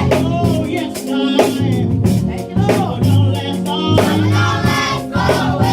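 Live gospel worship music: singers over a band with bass, drums and guitar.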